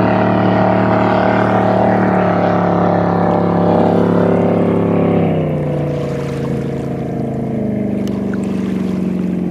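Chevy 409 big-block V8 in a flatbottom V-drive race boat running at speed on the water, a steady, loud engine note whose pitch drops about five seconds in.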